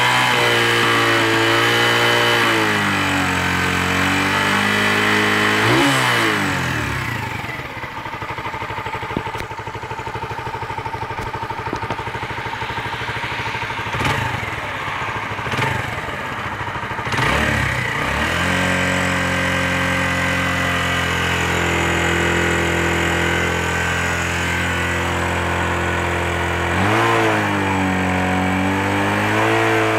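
Kanuni Windy 150 motorcycle's air-cooled single-cylinder engine running on the stand, held at raised revs at first. It drops back to idle for a stretch with three quick throttle blips, then settles at steady raised revs and rises again near the end.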